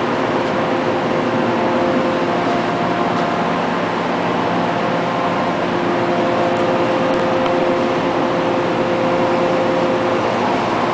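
CNC machine running: a steady mechanical drone with a few steady whining tones over a hiss, one of which grows stronger for a few seconds in the middle.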